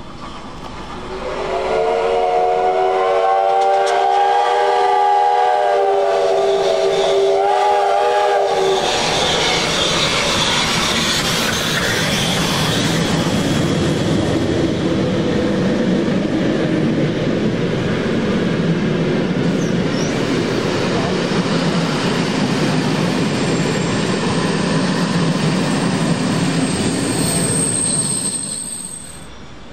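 Steam locomotive whistle blown in one long, slightly wavering blast of about seven seconds. Then the locomotive and its train run past, a loud steady rumble and clatter of wheels on rail that lasts about twenty seconds and falls away near the end.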